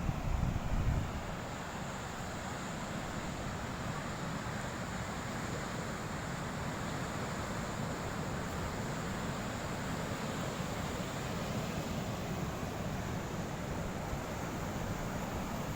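Wind buffeting the microphone for about the first second, then a steady hiss of wind and sea surf.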